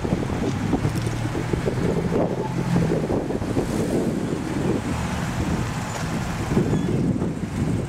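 Wind buffeting the microphone in a steady rough rush, with a vehicle's low hum from about one to three seconds in.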